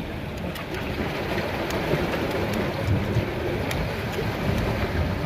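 Surf washing against a rocky shore, a steady rushing noise with wind on the microphone, and a few faint clicks from a knife slicing a serrano chile.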